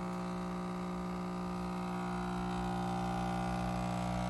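Magnehelic saxophone leak tester's small air pump running with a steady hum, drawing air through a saxophone that has all its pads closed for a seal test.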